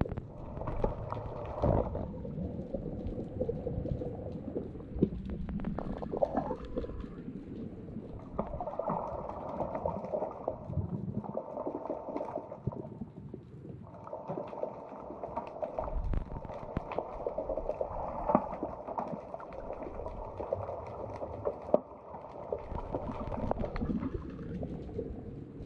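Muffled underwater sound picked up by a submerged camera: water movement and bubbling, with scattered knocks. A dull hum comes and goes in stretches of several seconds.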